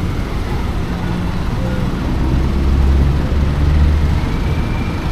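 Street traffic with a motor vehicle's engine passing close. The engine is loudest about three to four seconds in, then eases off.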